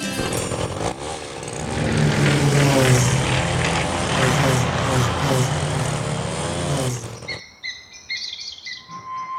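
Cartoon sound effects: a loud rushing, rumbling noise with wavering tones that cuts off about seven seconds in, followed by short bird-like chirps.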